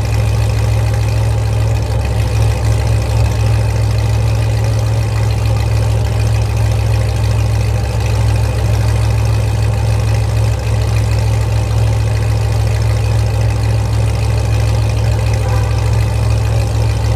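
Chevrolet Corvette's 6.2-litre V8 idling steadily through a loud exhaust, a deep, even note with no revving, echoing off the concrete of a parking garage.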